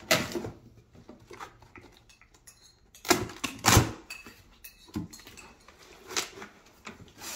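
Cardboard shipping box flaps being pulled open and pushed back by hand: a string of short scraping, rustling knocks, the loudest two about three to four seconds in.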